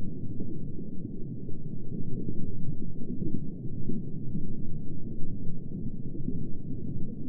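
Underwater ambience sound effect: a steady, muffled low rumble with no high sounds at all, as heard with the head under deep water.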